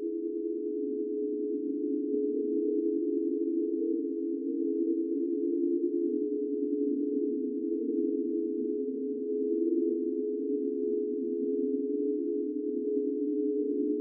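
Ghost sound effect: a steady, low drone of several close tones that waver slightly but neither rise nor fall in pitch.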